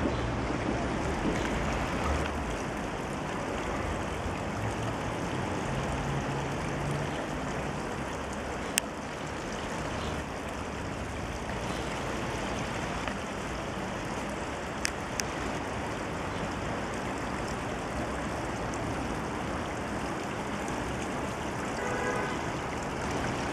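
Steady rush of running water, even and unbroken, with a few sharp clicks about a third of the way in and again past the middle.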